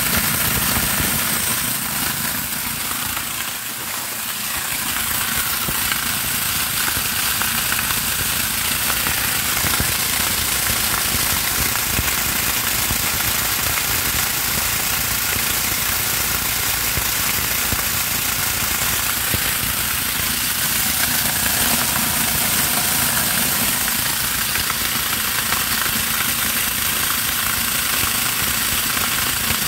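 Homemade electric corn grinder running steadily while it grinds dried corn kernels into grits: a loud, even grinding noise with a dense rattle. It drops briefly about four seconds in, then holds steady.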